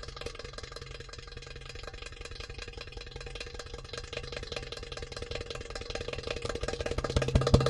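Belly-dance music in a quiet passage: a soft, rapid percussion roll over held notes, swelling louder near the end as the drums come back in.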